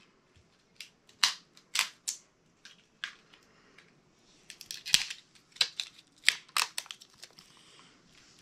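Small plastic L.O.L. Surprise Lils capsule being handled and pried open by hand: irregular sharp plastic clicks and snaps, coming closer together about halfway through.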